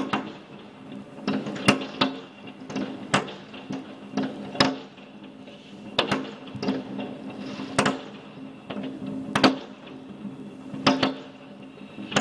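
Fireworks going off: sharp bangs at irregular intervals, roughly one a second, over a steady low hum.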